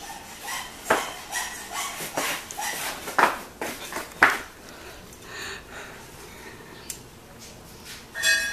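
Rubber flip-flops slapping and scuffing on a concrete floor, a handful of sharp slaps in the first half, then a brief high-pitched squeak near the end.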